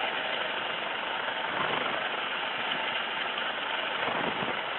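Steady rushing noise of an MH-65 Dolphin helicopter's turbine engines and rotor, heard from inside the cabin at the open door while it hovers for a hoist.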